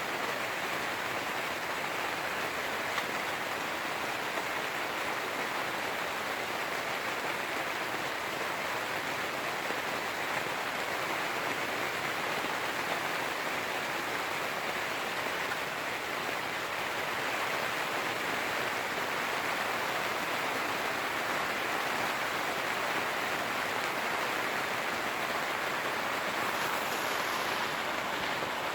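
Heavy rain falling steadily on a nylon tent, a little harder over the second half.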